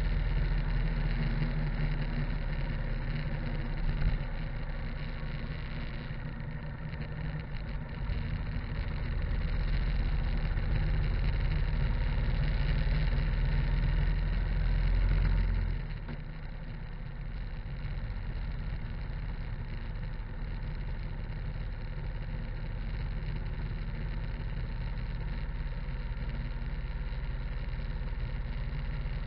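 Harley-Davidson V-twin motorcycle engine running while riding along a road, with wind and tyre noise. The sound drops in loudness about halfway through and then stays steady.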